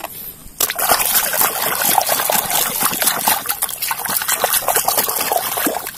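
Water splashing and sloshing as a small plastic toy vehicle is swished back and forth by hand in a basin of water, starting about half a second in.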